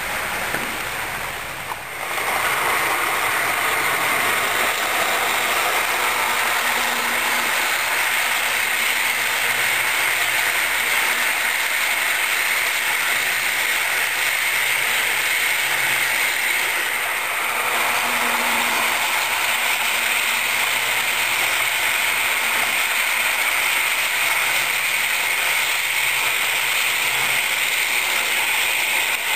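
Model train coaches rolling past close by on model railway track: a steady mechanical rattle of small wheels on the rails, rising about two seconds in and holding on.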